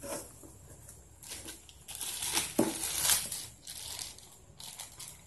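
A clear plastic bag of paint crinkling and rustling as it is handled and opened by hand. The rustle comes in several irregular bursts and is loudest a little past the middle.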